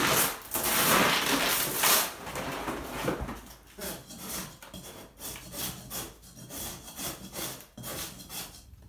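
Old wallpaper tearing loudly as a large sheet is pulled off the wall. From about three seconds in, a hand scraper rasps at the remaining paper layers in short, quieter strokes, about two a second.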